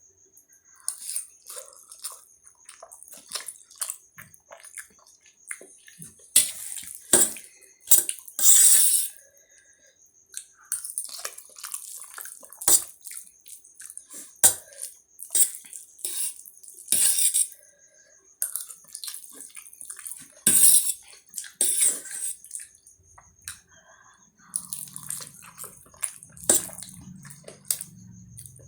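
Close-miked eating of spicy Maggi instant noodles: irregular wet slurps and chewing, with louder slurps every few seconds.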